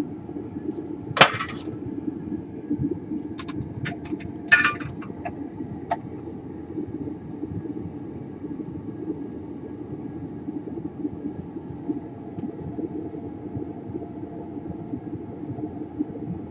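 Steady low background hum with a few light, sharp clicks and taps, mostly in the first six seconds, from tools and small parts being handled at the workbench.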